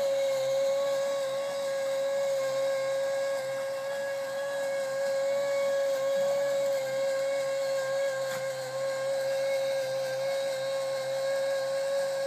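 A small motor running with a steady high whine over a hiss, unchanging throughout.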